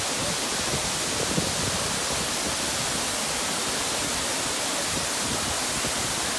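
Steady rush of a waterfall more than 130 feet high, pouring down over stepped rock ledges into its plunge pool.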